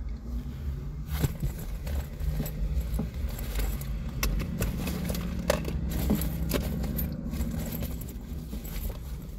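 Rummaging through a fabric crossbody bag: small objects rattling and clinking with a jangle like keys, in many small scattered clicks, over a steady low rumble.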